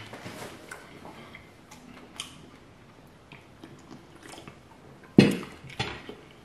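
Chewing and small clicks of eating, then a loud knock about five seconds in as an aluminium soda can is set down on the table, followed by a smaller knock of a fork against a ceramic plate.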